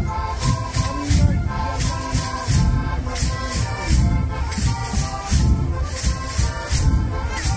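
Traditional Molisan bufù music: bufù friction drums give low rhythmic grunts together with shaken rattles, beating about twice a second under a simple stepwise melody line.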